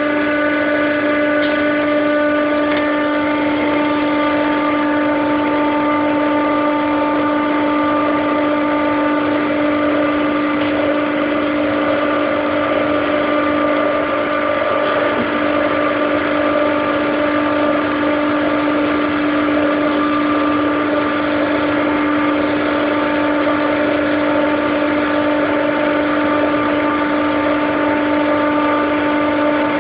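McQuay/Daikin EWLDJ235-SS chiller compressor running steadily, a constant hum with one strong low tone and several fainter higher whining tones over a rushing noise, which the owner finds strange.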